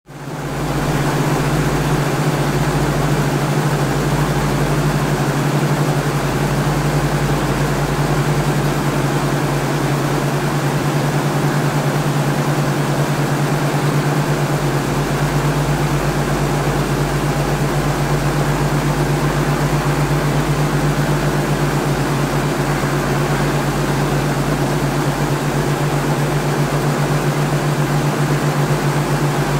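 Helicopter heard from inside the cabin: a steady, loud mechanical drone with a strong low hum and a hiss of noise above it, fading in over the first second and then holding level.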